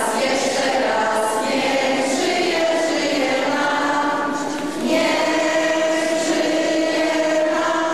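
Many voices singing together in a reverberant hall, a slow melody with long held notes.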